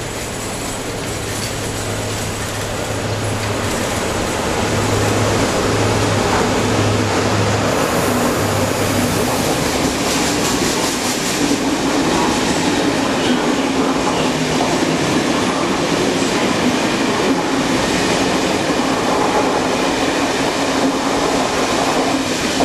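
Siemens ER20 diesel locomotive running through at speed, its engine a low steady hum over the first several seconds, followed by a rake of double-deck passenger coaches rolling past with continuous rail rumble and some clicking of wheels over rail joints. The noise grows louder during the first few seconds and then holds steady as the coaches pass.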